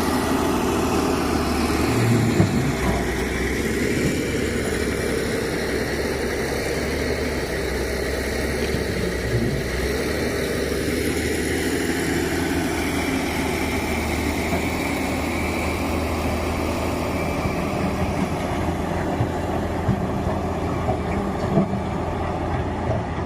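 Backhoe loader's diesel engine running steadily at a low, even speed, with a few short knocks near the end.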